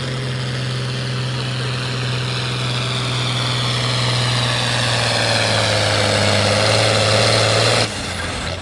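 A John Deere 6030's turbocharged six-cylinder diesel works hard pulling a weight-transfer sled, its pitch sagging slowly as the sled's load builds while the sound grows louder. Near the end the engine sound drops off suddenly.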